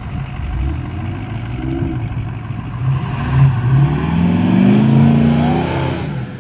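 Ford F-250 pickup's engine revving hard under load. Its pitch climbs steadily from about three seconds in and it is loudest in the second half, with a faint high turbo whistle above it.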